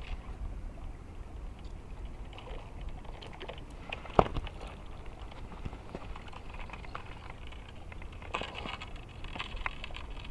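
Small clicks and rustles of handling, with one sharp click about four seconds in, over a low steady rumble.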